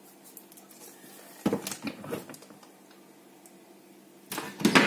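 Knocks from things being handled in a kitchen: a sharp knock about a second and a half in with a few light clicks after it, then a louder knock near the end.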